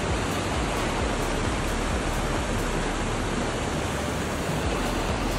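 Mountain river rushing over boulders and small rapids: a steady, even rush of water.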